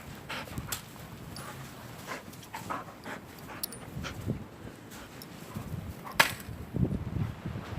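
A dog making small sounds as it plays with a stick, with scattered short clicks and crunches and one sharper crack about six seconds in.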